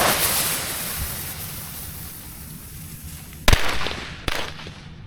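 Small basic firecrackers going off: a fading hiss, then two sharp bangs less than a second apart, the first louder.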